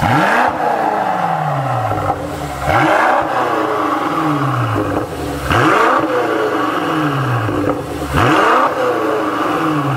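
BMW X6 M Competition's twin-turbo V8 revved at standstill through a Fi valvetronic performance exhaust. Four quick blips, about every two and a half to three seconds, each rising sharply and then falling slowly back to idle.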